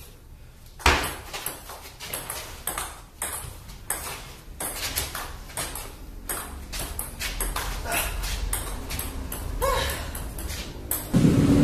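A table tennis rally: the ball clicks off the table and the paddles, about two hits a second, for most of the clip. Near the end the hits stop and a louder, lower noise sets in.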